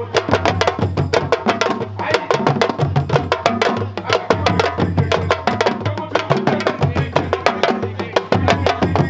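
West African drums played live in a fast, dense rhythm, many sharp strikes a second, over a steady low bass tone.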